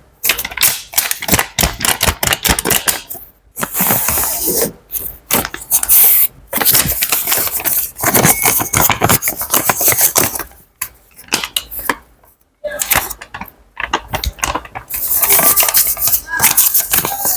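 Money being handled: a dense, uneven run of rustles, crinkles and clinking clicks, with a few brief ringing tones.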